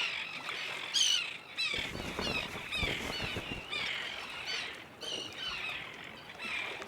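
Birds calling: a run of short, high chirps, several a second, with no speech.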